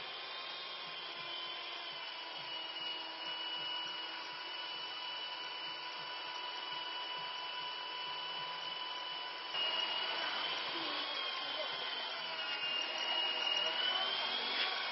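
Remote-control MD500 scale helicopter in flight: a steady high whine from its motor and rotors. About two-thirds of the way through it gets louder and its pitch swings up and down.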